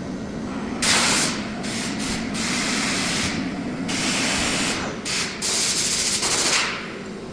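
Compressed air blowing in short hissing bursts, on and off several times, over the steady hum of a CNC machining centre.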